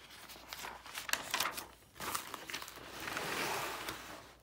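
A page of a spiral-bound paper textbook being turned: crackling paper for about the first two seconds, then a longer swish as the page sweeps over and settles.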